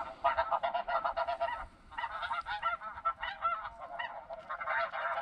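Snow geese calling: many short, high-pitched, overlapping yelping honks from a flock, with a brief lull about two seconds in.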